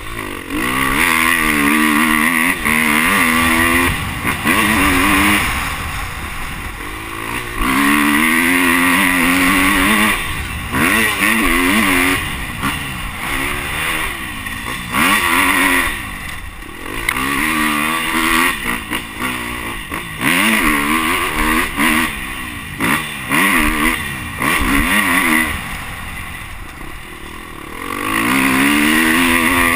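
Dirt bike engine being ridden hard, revving up and dropping back over and over as the throttle is opened and shut, with the pitch rising through each pull and falling on each lift-off.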